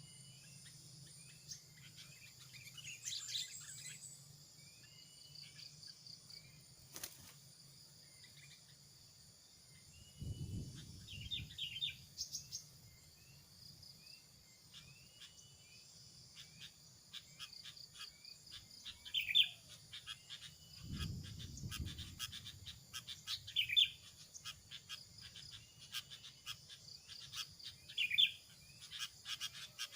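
Wild birds giving short chirping calls every few seconds over a steady, high-pitched drone of insects. There are two brief low rumbles, about ten and twenty-one seconds in.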